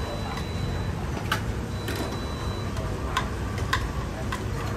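Sharp, irregular clinks and taps of cooking utensils against bowls and pots, about five in all from about a second in, over a steady low background rumble.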